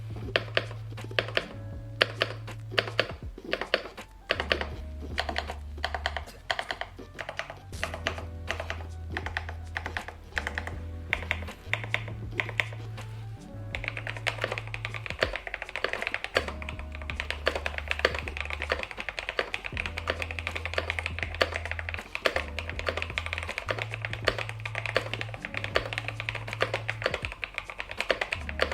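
Typing on an HJ87 mechanical keyboard with lubed Philikey White linear switches and Cherry-profile ABS pudding keycaps. The key presses are separate at first and become fast, continuous typing from about halfway. Background music with a steady bass line plays underneath.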